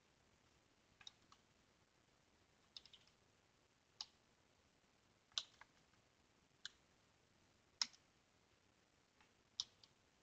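Faint, scattered keystrokes on a computer keyboard: about eight separate clicks, roughly one a second, as a terminal command is edited and entered.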